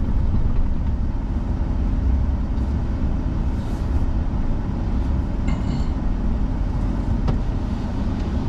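A truck driving slowly, heard from inside the cab as a steady low road and engine rumble.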